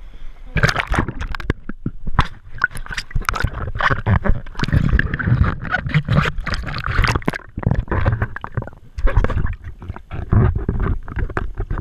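Sea water splashing and gurgling against a camera moving at and just under the surface in shallow water, with many irregular splashes over a low rumble of churning water.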